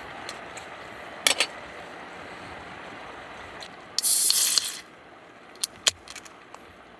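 A short, loud hiss of spray lasting under a second, about four seconds in, preceded by a pair of sharp clicks, over a steady low hiss of background noise, with a few light ticks near the end.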